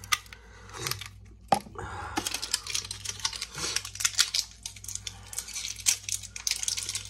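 Batteries being handled and taken out of their pack: two sharp clicks in the first two seconds, then a quick, busy clicking and rattling.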